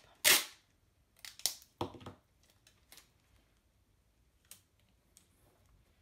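Adhesive tape torn from the roll in one loud, short rip about a quarter second in, followed by a few quieter short rustles and taps as the tape is handled and pressed onto the card.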